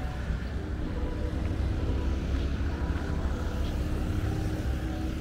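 Street ambience: a steady low rumble of road traffic, with a few faint steady tones above it.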